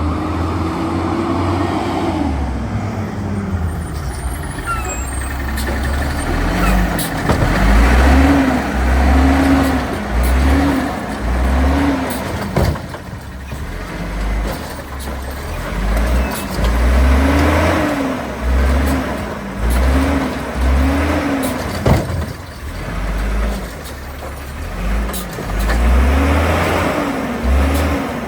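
Autocar WX Rapid Rail automated side-loader garbage truck's diesel engine revving up and down in quick repeated surges, in sets of three or four, over a heavy low throb. A single sharp bang comes about three-quarters of the way through.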